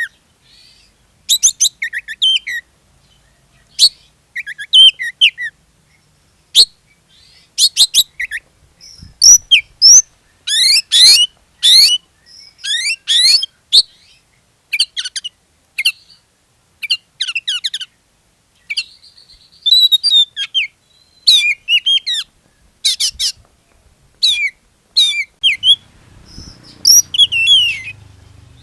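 Oriental magpie-robin (kacer) in full, energetic song: short loud phrases of varied whistles, sliding notes and fast trills, one after another with brief pauses. This is the 'gacor' song played as a lure (pancingan) to set other magpie-robins singing.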